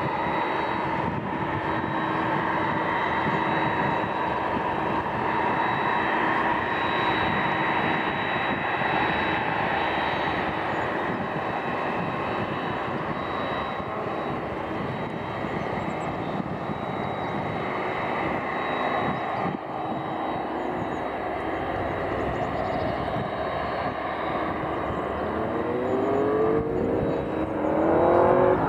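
Jet airliner engines running with a steady rush and a constant high whine. Near the end a second engine note climbs in pitch.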